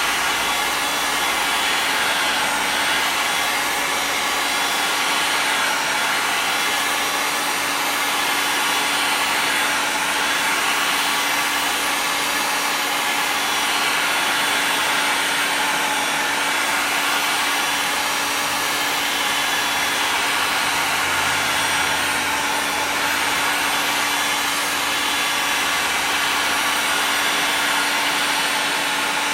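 A 2000-watt heat gun blowing steadily, with a constant hum under its even rushing air, as it heats the surface of a polypropylene-EPDM mudflap.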